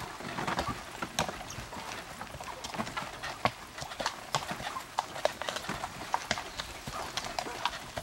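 Hoofbeats of a horse pulling a two-wheeled cart at a steady pace on a dirt and grass track, with irregular sharp clicks several times a second.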